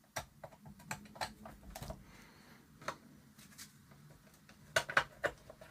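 Irregular light clicks and taps of small plastic and metal parts being handled while a clock radio is put back together, with a cluster of louder clicks near the end.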